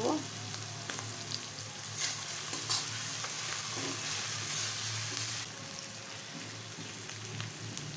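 Half-fried sliced onions sizzling in hot oil in a metal kadai, stirred with a metal spatula that scrapes and clicks against the pan a few times in the first three seconds. The sizzle eases off a little about halfway through.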